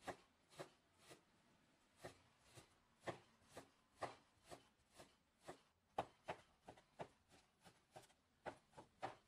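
Chinese cleaver chopping raw pork on a wooden cutting board, mincing it: a run of sharp knocks, about two a second at first, quickening to three or four a second in the last few seconds.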